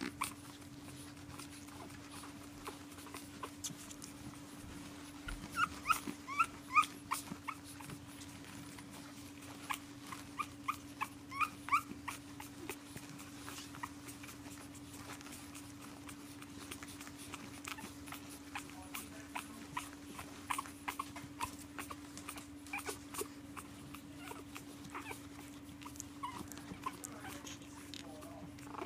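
Pug puppies whining and yipping in short, high squeaky calls that come in bunches of a few every several seconds, protesting at being kept in their pen. A steady low hum runs underneath.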